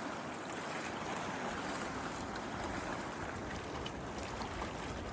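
Steady rushing noise of running water, with wind rumbling on the microphone from about a second and a half in.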